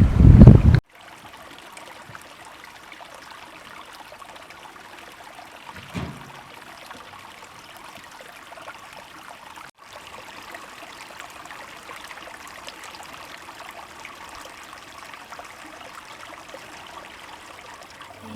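Steady rushing of a flowing stream, an even hiss throughout. In the first second a loud low rumble cuts off abruptly, and about six seconds in there is a brief low thump.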